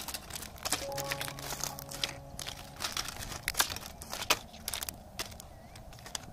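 Discarded plastic phones, housings and wrappers clattering and crinkling as a wooden stick rakes through the pile: irregular sharp clicks mixed with rustling.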